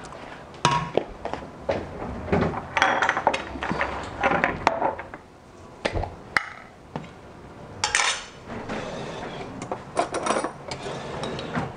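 Plastic slotted spatula knocking and scraping against a steel frying pan while stirring tomato sauce, then scattered clinks and knocks of kitchen utensils and containers being handled.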